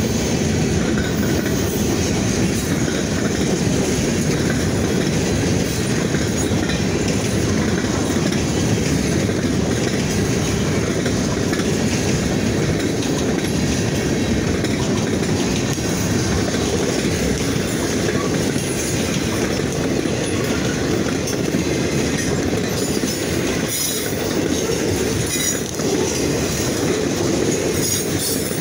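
Freight train of boxcars passing close by at speed: a steady, loud rumble of steel wheels rolling over the rails.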